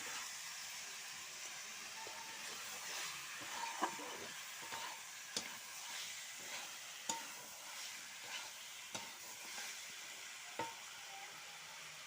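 Chicken frying in spiced oil in a pot, sizzling steadily while it is stirred, with the stirring spoon knocking and scraping against the pot about once a second. The meat is being fried hard with the ground spices before water goes in.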